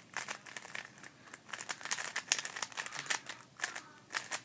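GAN Air Master 3x3 speedcube being turned quickly by hand: a dense, irregular run of light plastic clicks from the layers.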